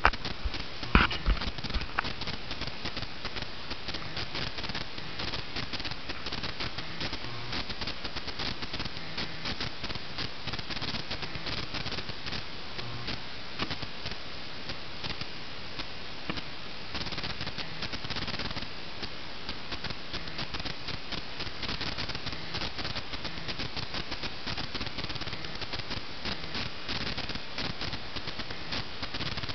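Continuous rustling and scratching of wood-shaving bedding as hamsters move through it, with a few sharp knocks about a second in.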